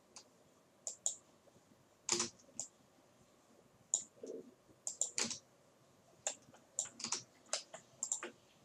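Irregular clicks of a computer mouse and keyboard keys, a few at a time with short gaps, the loudest about two and four seconds in.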